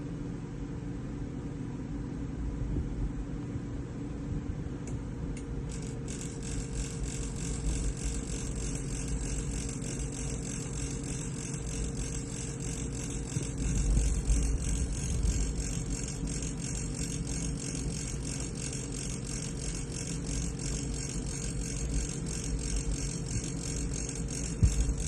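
Cookpower stainless steel electric oven running with a steady hum and a fast, fine rattle that joins about six seconds in: the abnormal noise the owner finds strange.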